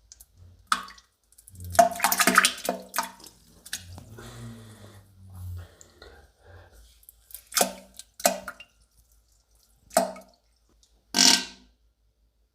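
Violent diarrhea sound effect: a string of wet, sputtering farts with squishy splatter, a longer run of sputters about two seconds in, a low gurgle after it, then several more short bursts.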